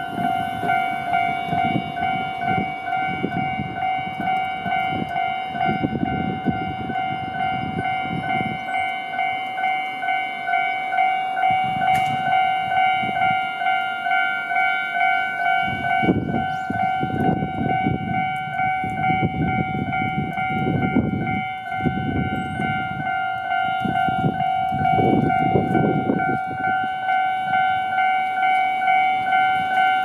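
Japanese railway level-crossing warning bell ringing in a steady, rapid repeating pattern while the barriers are down. A low rumble swells and fades several times in the second half.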